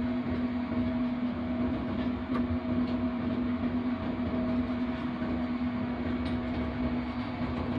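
Steady drone inside the cab of a GEU-40 diesel-electric locomotive running along the line: a constant hum over rumbling wheel and rail noise, with a few faint clicks.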